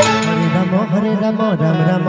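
A male voice sings a devotional kirtan melody with wavering, sliding notes over sustained electronic keyboard chords. The percussion drops out at the start.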